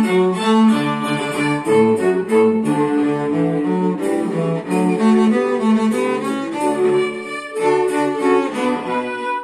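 Cello bowed in a steady run of notes, several to the second, the notes following one another without a break.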